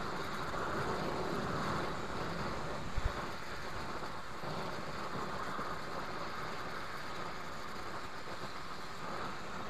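Oxy-acetylene torch flame hissing steadily while preheating a cracked cast iron casting for brazing. A brief knock about three seconds in.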